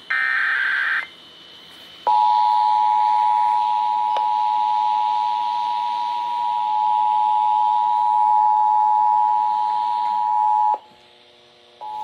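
Emergency Alert System broadcast test heard through a radio's speaker. First the last burst of the SAME header, a second of shrill digital data tones. Then, after a short gap, the steady two-tone attention signal holds for about nine seconds and cuts off sharply.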